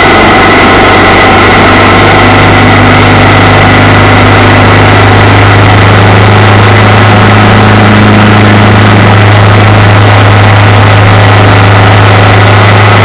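Motorcycle engine running steadily at cruising speed, with a loud, unbroken wind and road rush over it.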